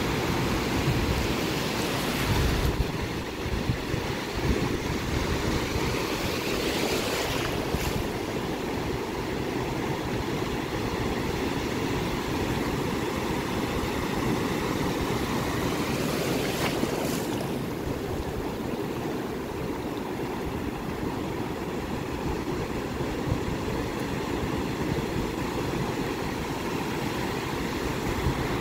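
Ocean surf breaking and washing up the beach in a steady rush, with louder crashes of a breaking wave near the start, about seven seconds in and again about seventeen seconds in. Wind rumbles on the microphone underneath.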